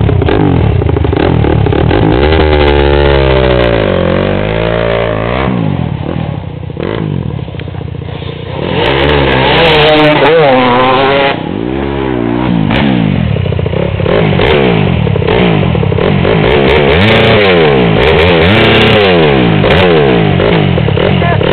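KTM four-stroke enduro motorcycle engine being revved again and again, its pitch sweeping up and down with each blip of the throttle, with a quieter stretch about six to eight seconds in.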